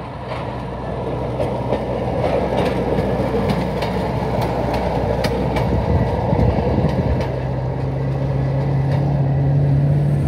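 Rail speeder (track motorcar) towing a small water-tank car along the rails: a steady engine hum with sharp clicks of the wheels over rail joints. The engine note grows stronger and more even from about seven seconds in.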